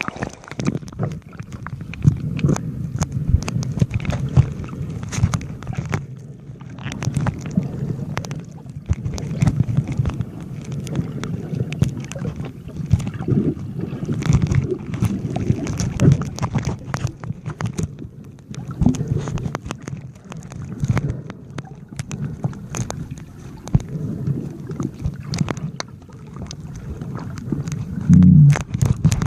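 Muffled underwater sound picked up by a phone sealed in a plastic waterproof pouch: low sloshing water with frequent clicks and knocks from the pouch being moved about.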